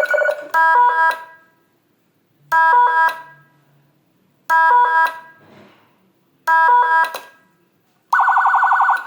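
Whelen electronic siren module sounding through its speaker. A fast two-pitch warble cuts off just after the start. A short stepped-pitch chirp pattern then repeats four times, about every two seconds. Near the end a rapid warble tone starts.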